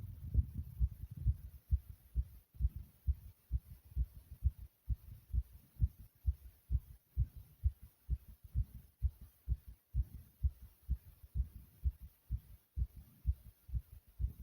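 A human heartbeat beating fast and hard: a steady run of short, low thumps, many in close lub-dub pairs.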